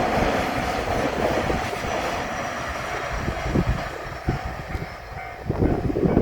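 JR Shikoku 8000 series limited express electric train running past the level crossing, its running noise slowly fading as it draws away. A steady tone sounds over the first second or so, and low thuds come and go near the end.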